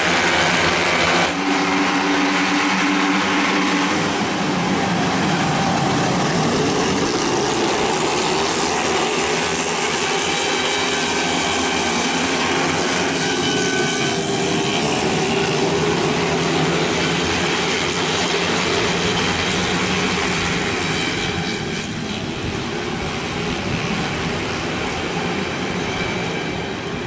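A pack of 131cc automatic racing scooters revving hard under acceleration, several engines overlapping and rising and falling in pitch, slightly lower in level near the end.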